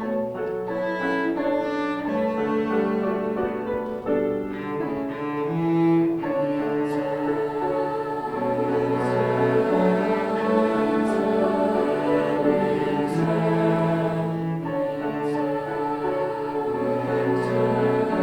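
A string ensemble playing an instrumental passage: bowed strings in held, overlapping notes that change about every second, with cello and bass carrying the low line.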